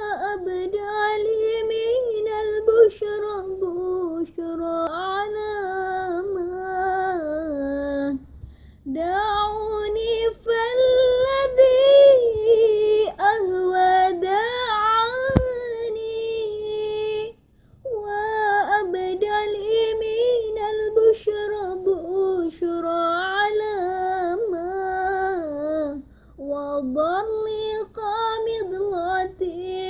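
A young woman singing an Arabic sholawat (Islamic devotional song) solo and unaccompanied, in long phrases with wavering, ornamented melismas, pausing briefly for breath three times. One sharp click about halfway through.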